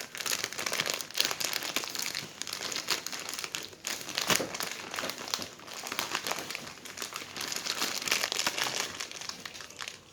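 Packaging being handled and opened: continuous irregular crinkling and rustling, with a brief lull about four seconds in.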